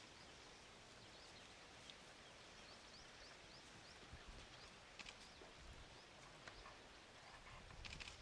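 Near silence: faint outdoor ambience with a quick run of faint high chirps about two seconds in, and a few soft clicks later.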